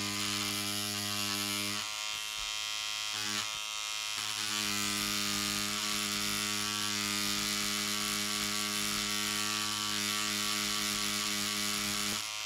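Pen-style cartridge tattoo machine with a beveler tip buzzing steadily as it hammers bevels into cased leather. The buzz drops out briefly about two seconds in and again for about a second soon after, then runs evenly until it stops at the very end.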